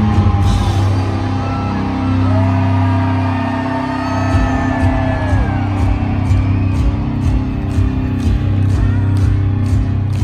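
Live hard rock band playing loud, heard from the crowd: heavy bass and distorted guitar over drums, with a steady cymbal beat in the second half. Long gliding held notes sound above the band.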